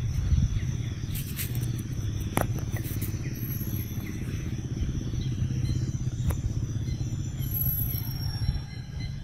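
Steady low rumble with a couple of sharp clicks and a faint high insect-like buzz.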